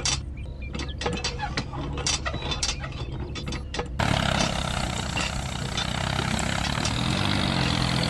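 Small sharp clicks of toy parts being fitted over a low steady tractor-engine hum. About four seconds in it changes suddenly to a louder, steady diesel tractor engine sound with a hiss, wavering in pitch near the end.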